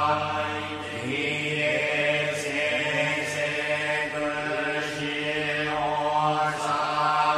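Background music of a chanted mantra: long, held voices over a steady low drone.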